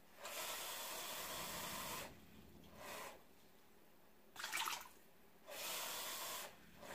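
Water poured from a measuring cup into an Instant Pot electric pressure cooker: a splashing pour of about two seconds at the start, a short trickle about three seconds in, and another pour of about a second near the end. Between them, a short ringing clink of the cup.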